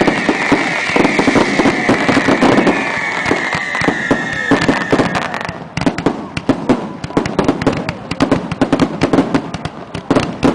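Fireworks display: aerial shells bursting in quick succession, a rapid, dense run of bangs and crackles. A high shrill sound, falling slightly in pitch, runs beneath the bangs and cuts off about halfway through.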